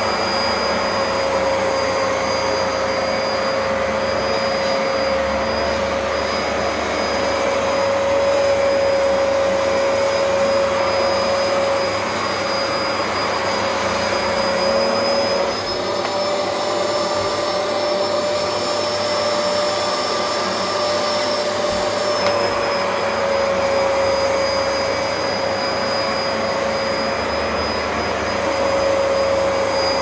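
Vax upright carpet washer running continuously: a steady motor whine over the hiss of suction, its pitch shifting slightly a couple of times.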